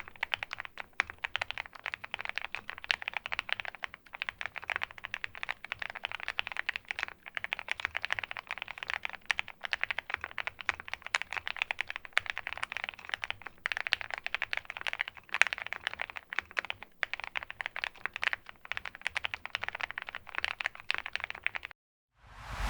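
Fast, continuous typing on an OwLab x Mr. Suit gasket-mount custom mechanical keyboard: lubed 43 Studio Popu switches on a PC plate, with PBT keycaps, giving a dense run of keystroke clicks. The typing cuts off near the end, and a short whoosh follows.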